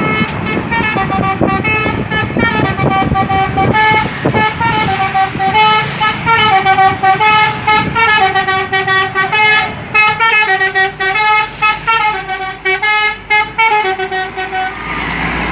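Bus 'telolet' horn, a set of electric horns playing a quick tune of notes stepping up and down in pitch, which stops shortly before the end. Engine and road noise run beneath it in the first few seconds.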